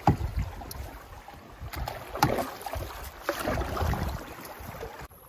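A canoe being paddled on a river: water swishing and splashing around the paddle and hull, with several irregular knocks, the loudest near the start and about two seconds in.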